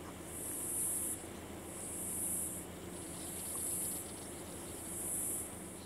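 Insects buzzing in a high-pitched chorus that swells and fades in regular pulses, each about a second long and coming roughly every one and a half seconds.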